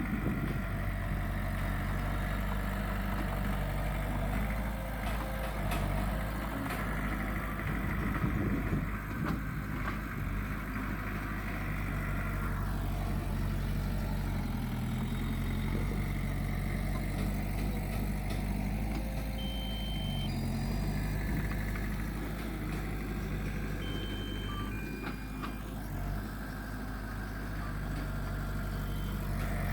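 Diesel engine of heavy earthmoving machinery running steadily at a low, even pitch, with a few short high beeps about two-thirds of the way in.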